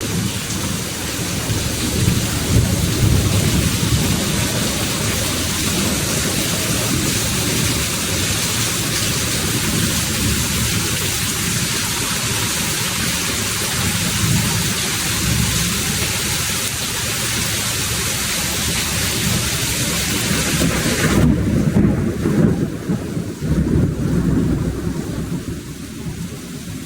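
Heavy rain pouring down: a steady, loud hiss with a low, uneven rumble underneath. About 21 seconds in, the high hiss drops away abruptly while the rumble goes on.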